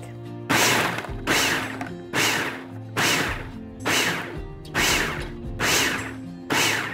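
10-cup food processor pulsed eight times in a row, a little faster than once a second, its blade chopping raw cauliflower florets into rice-sized bits. Each pulse starts sharply and dies away.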